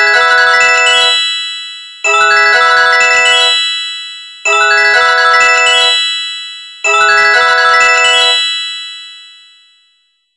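Sony Ericsson J210i ringtone: a quick rising run of bell-like mallet notes that rings out, played four times about every two and a half seconds, the last one fading away near the end.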